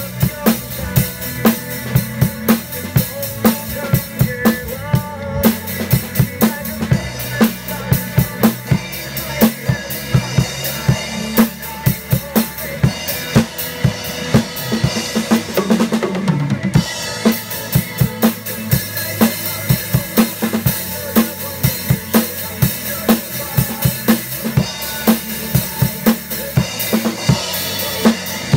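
Drum kit played with sticks in a steady, driving groove: bass drum, snare and Zildjian cymbals struck several times a second.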